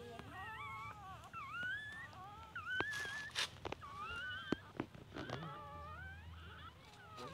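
Newborn puppies whimpering and crying: many overlapping high, wavering cries that rise and fall without a break.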